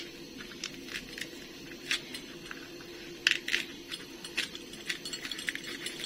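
A metal utensil scraping seeds out of a slit fresh green chilli, giving irregular light scratches and clicks, a couple bunched together about three seconds in.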